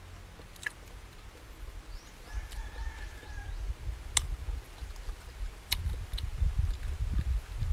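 Close-up eating sounds of someone eating grilled fish with his fingers: a few sharp mouth smacks and chewing, with low rumbling noise in the last couple of seconds. A faint drawn-out animal call sounds about two and a half seconds in.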